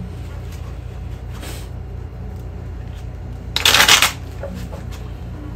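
A deck of playing cards being riffle-shuffled by hand: a soft riffle about a second and a half in, then one loud, quick riffle of about half a second near three and a half seconds in.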